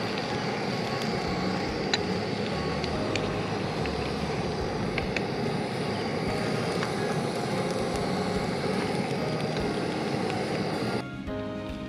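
Canister gas stove burner running with a steady flame roar under a hot-sandwich maker, with a few light metal clicks as the maker is handled. The roar stops about a second before the end, where music takes over.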